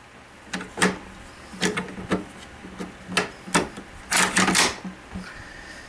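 Metal parts of a WASR-10 AK-47 clicking and clacking as the rifle is reassembled by hand: about a dozen sharp clicks and knocks, with a quick cluster of them about four seconds in.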